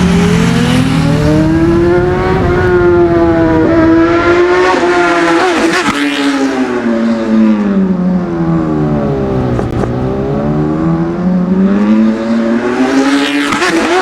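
Kawasaki Ninja ZX-10R inline-four on a loud SC Project exhaust, revved hard for a flyby. Its pitch climbs, sinks low through the middle, then climbs again near the end.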